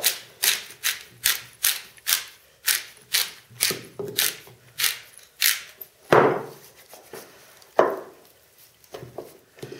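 Hand pepper mill twisted in quick strokes, each turn a short crunchy grind, about two and a half a second for the first five seconds. Then two louder thuds about six and eight seconds in as pieces of raw lamb are handled on a wooden board.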